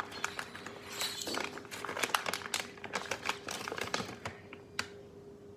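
Rustling and crinkling handling noises with many quick clicks and taps, thinning out near the end, over a steady faint hum.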